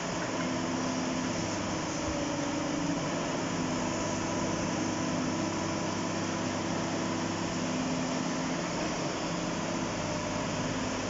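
Diesel engine of a JCB tracked hydraulic excavator running steadily as it digs, with held engine tones that shift slightly in pitch now and then over a steady rush of noise.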